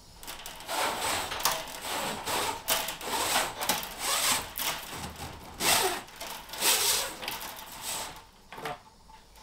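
Cable and a stiff pull rod scraping and rubbing as they are pushed and dragged through a tight gap under the van floor and seat bench. It comes as about a dozen irregular strokes and stops shortly before the end.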